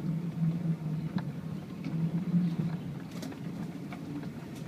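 Volkswagen Touareg V8 engine pulling at a steady low drone as the 4WD climbs a rutted dirt track, heard from inside the cabin, with scattered light clicks and knocks over the rough ground.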